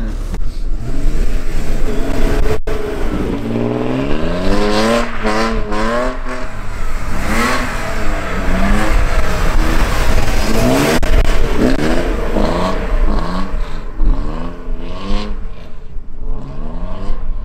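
Car engine revved hard again and again, its pitch rising and falling over and over, about once a second.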